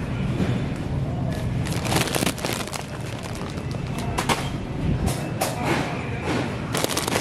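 A plastic bag of chips crinkling and knocking as it is handled and dropped into a shopping cart, over a steady store hubbub.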